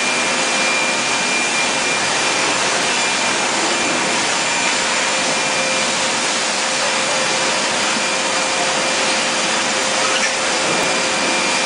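Steady rushing noise of a radiator brass tank soldering machine running on a factory line, even and unbroken, with a couple of faint steady tones over it.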